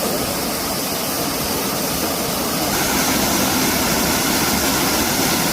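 Waterfall: the steady rush of falling water, a little louder about halfway through.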